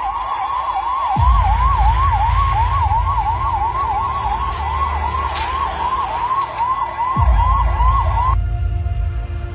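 Fire engine's electronic siren wailing in a fast yelp, its pitch swooping up and down about three times a second, with a deep rumble underneath from about a second in. The siren cuts off suddenly near the end and music takes over.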